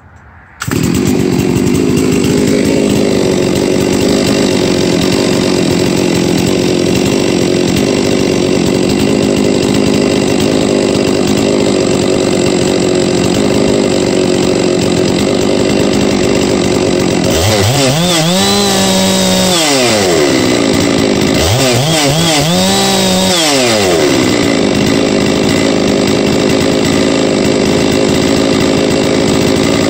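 Huztl-based MS660 clone chainsaw, a large two-stroke, idling steadily and then revved up twice, each rev held about two seconds before dropping back to idle. It is being run for an initial carburettor tune after a top-end rebuild with a new piston and rings.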